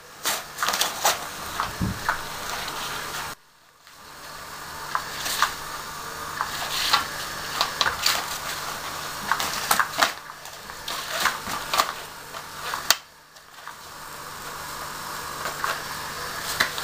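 Battery-powered Cat's Meow toy running: its motor whirs steadily as the wand circles under the nylon cover, with scratchy rustling and clicks of the fabric as cats paw at it. The sound breaks off briefly twice.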